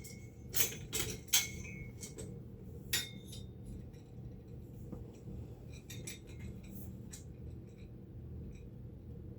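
Metal parts clinking and knocking against a steel stand frame during assembly: a few sharp clinks in the first three seconds, then lighter ticks.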